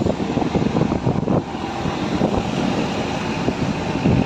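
Wind buffeting the microphone over the steady road and engine noise of a moving vehicle.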